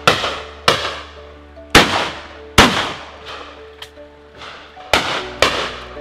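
Shotgun shots at driven game birds: about six loud reports at uneven intervals, each with a short echoing tail, two of them close together near the end, over background music.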